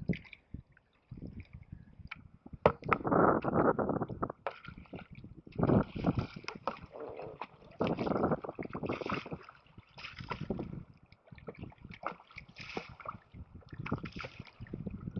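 Sea kayak paddling: paddle blades dipping and water splashing and sloshing around the hulls, in irregular bursts every second or two.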